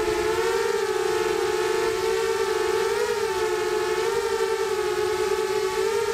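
FPV quadcopter's electric motors and propellers whining as it flies, heard from its onboard camera: a steady two-note whine whose pitch wavers slightly up and down with the throttle.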